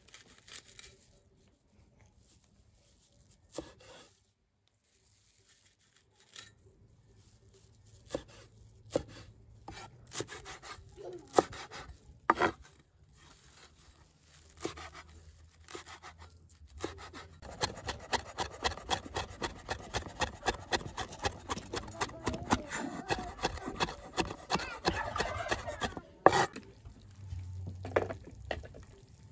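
A cleaver chopping fresh herbs on a wooden cutting board: a few separate knocks at first, then about nine seconds of rapid, steady chopping that ends with one loud knock.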